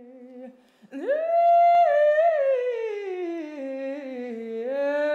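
A woman's voice singing wordlessly in long held notes: a faint low note first, then from about a second in a loud high note that slowly slides down in pitch and rises again near the end.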